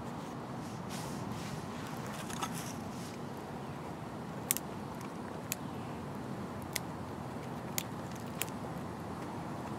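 Twigs burning in a Bushbox Micro Pocket folding wood stove, with a steady background hiss and several sharp single pops of crackling wood, mostly in the second half.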